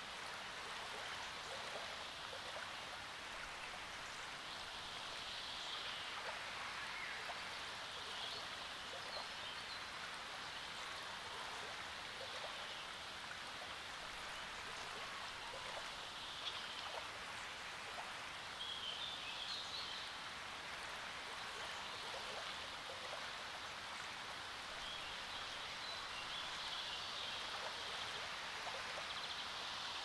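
Small lake waves lapping and splashing at the shore in a steady wash, with birds chirping several times in the background.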